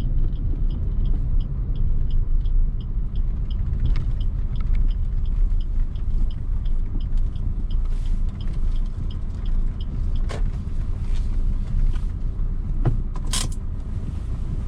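Inside a Maruti Suzuki Ciaz, a steady low engine rumble with the indicator relay ticking evenly, about two to three ticks a second, as the car pulls over. A few sharp clicks and knocks come from the cabin in the second half.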